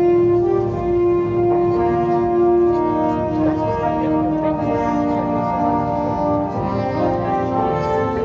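Orchestral music led by brass, playing long held notes.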